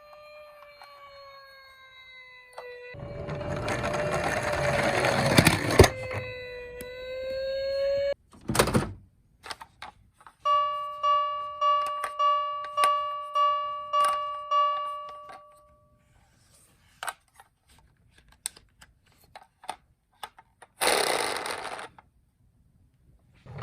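Toy emergency-vehicle minicars sounding their electronic sirens: first a wailing siren that rises and falls slowly, then a pulsing electronic tone repeating roughly twice a second for about five seconds. Short bursts of rattling noise break in between, loudest in the middle of the wailing part.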